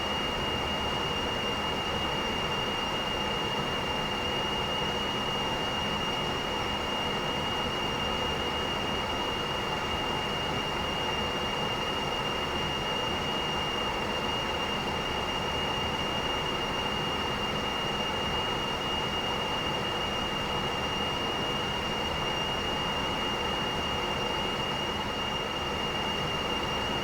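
Air rushing steadily through a ventilation duct, a constant airy roar with a steady high whistling tone over it.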